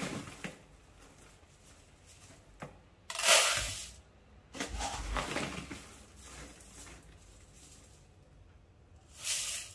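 Plastic bag crinkling and dry rice grains rustling as a cup scoops rice out of the bag. There are two loud bursts, about three seconds in and near the end, with softer rustles between.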